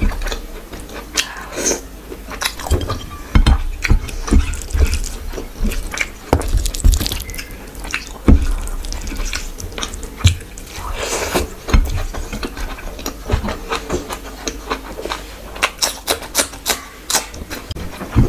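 Close-miked wet eating sounds: fingers squishing and mixing rice with curry gravy on a plate, and chewing, heard as many irregular sharp clicks and squelches.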